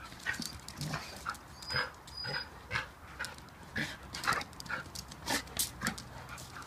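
Two dogs play-fighting, making a rapid, irregular run of short vocal noises, several a second, as they wrestle.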